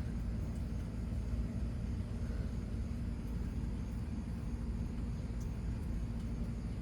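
A steady low outdoor rumble with a couple of faint clicks.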